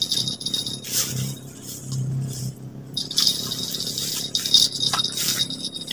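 Spinning fishing reel worked just after a long cast: a rattly, whirring clicking in spurts, a short one about a second in and a longer one later, as line runs out and the handle is cranked to take up slack.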